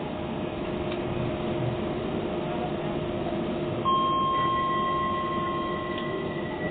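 Steady hum of a Docklands Light Railway train from inside the carriage. About four seconds in, steady high electronic tones at several pitches sound together for about two seconds, one lingering a little longer.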